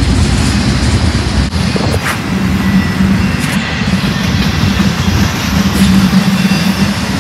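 Double-stack intermodal freight cars rolling past on steel wheels: a steady, loud rumble of wheels on rail, with a brief clank about two seconds in.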